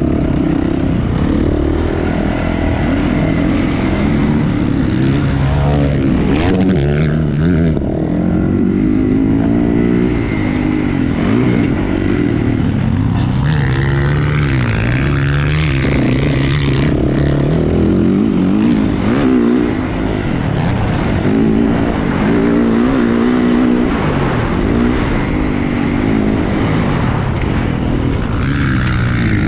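Dirt bike engine on a motocross track, close up from the rider's own camera, revving up and falling back over and over as the bike accelerates and backs off through the track.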